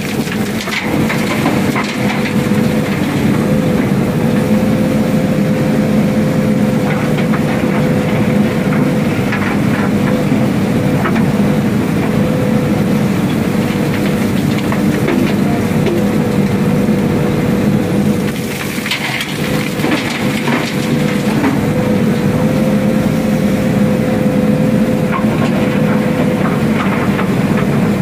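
JCB backhoe loader's diesel engine running steadily, heard from inside the cab while the backhoe is being operated. A steady whine sits above the engine, with occasional clatter and knocks that come thickest about two-thirds of the way through.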